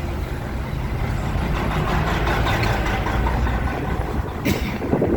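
A vehicle running, a steady low rumble with road noise, and one sharp knock about four and a half seconds in.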